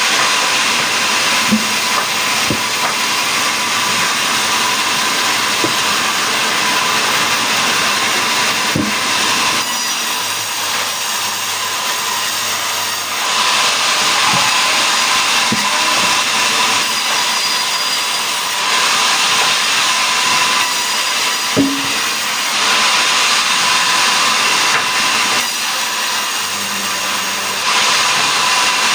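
Powered wood-cutting saw sawing mahogany into planks: a steady, loud machine noise with a constant high hum, growing louder for several stretches, with a few short knocks.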